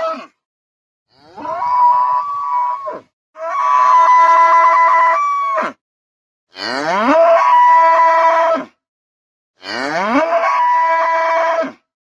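A cow bellowing: a call ends just at the start, then come four long calls of about two seconds each. Each call opens with a quick rising glide and then holds a steady pitch, with dead silence between the calls.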